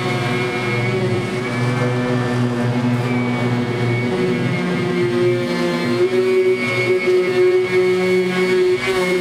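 Power sander running steadily on sheet-metal bodywork, a droning motor hum with a few held tones whose pitch shifts slightly as it is worked.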